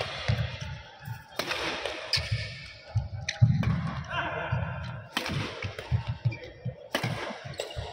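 Badminton rackets striking a shuttlecock in a doubles rally: a sharp hit every second or two, with low thuds of footsteps on the court between them.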